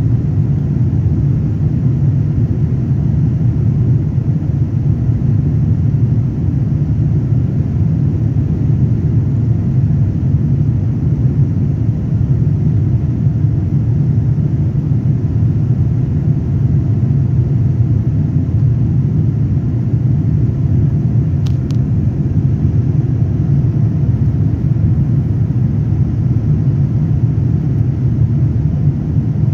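Airliner cabin noise in flight: a steady, low rumble of the engines and airflow heard from inside the cabin. A faint short tick comes about two-thirds of the way through.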